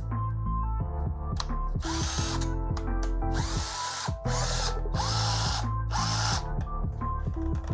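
Cordless hammer drill run in four short bursts, its motor whining up in pitch at each trigger pull, powered by a converted lithium battery. Background music plays throughout.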